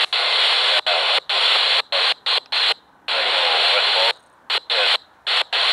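Railroad radio breaking squelch over and over: loud bursts of static that cut in and out abruptly, some a fraction of a second and a couple about a second long, with a faint garbled voice buried in the hiss.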